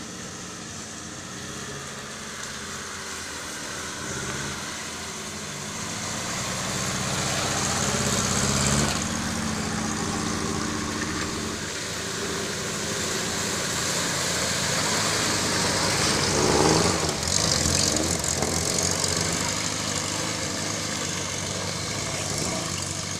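Off-road vehicle engine running on a muddy forest track, growing louder as it comes closer. It revs up about eight seconds in and again, loudest, around sixteen to seventeen seconds in.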